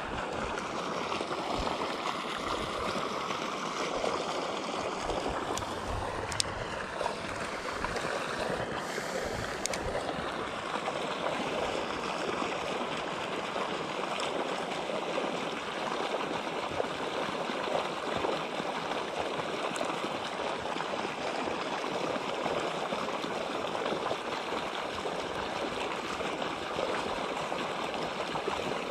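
Steady rush of water pouring from an inflow pipe into a pond.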